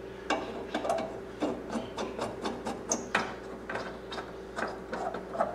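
Nut driver turning screws down through a plastic air box into its metal mounting bracket: a run of irregular small clicks and scrapes.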